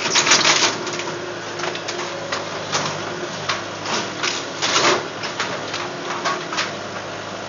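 An engine running steadily, with irregular short bursts of clattering and scraping over it, the loudest about half a second in and again near the middle.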